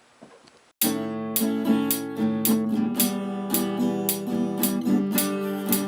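Background music of a strummed acoustic guitar, cutting in abruptly just under a second in, with about two strums a second.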